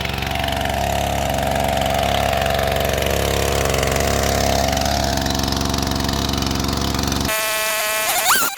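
Stihl MS 391 two-stroke chainsaw idling steadily, cutting off suddenly about seven seconds in. A short rising squeak follows near the end.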